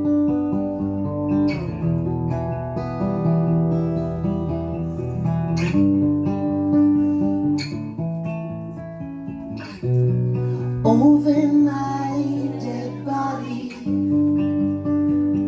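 Acoustic guitars playing chords, each held for a second or two before changing, as the intro of a song. A voice comes in over them briefly about eleven seconds in.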